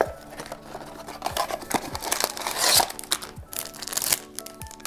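Hands opening a cardboard toy blind box, then crinkling and tearing open the foil bag inside, with dense crackling rustles that are loudest a little under three seconds in.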